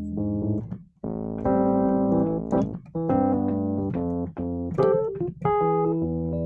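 Electric piano playing a series of held chords, the instrumental introduction to a song before the vocals come in.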